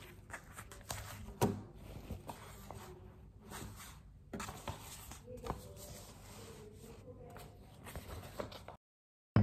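Sheets of printed paper rustling as they are handled and leafed through on a table, with scattered light taps and handling noises. The sound cuts off to silence near the end.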